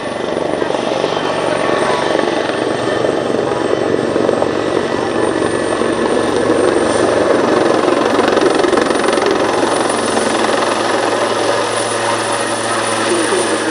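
Leonardo Wildcat HMA.2 helicopter flying its display, its rotor and turbine noise loud and steady with a thin high whine above it.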